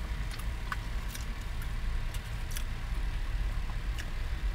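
Car idling with a steady low rumble, while someone rummages through bags in the back of the car, making a few light clicks and rustles.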